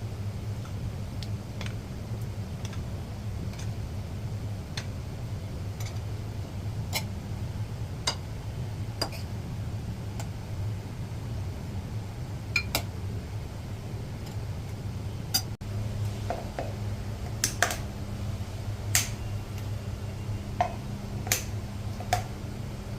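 Steady low hum with scattered light clicks and clinks of kitchen utensils and dishes, more frequent in the second half.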